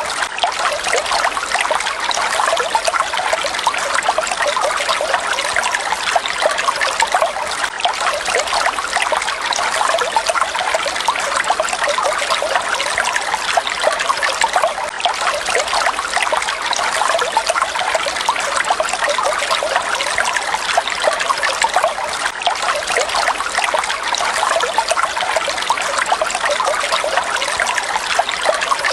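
Falling water, a steady, even rush that does not change.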